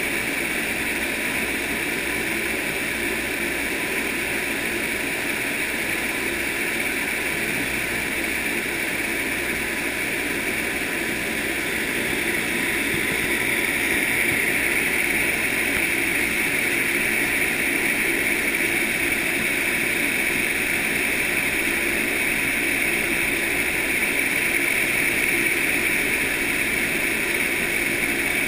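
The big fan of an open-air vertical wind tunnel running at full power, a steady roar of fan and air rushing upward, a little louder from about halfway.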